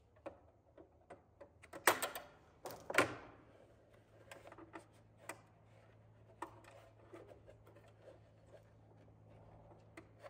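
A bare copper ground wire and gloved hands working against a metal breaker panel: scattered light clicks and taps, with two louder knocks about two and three seconds in.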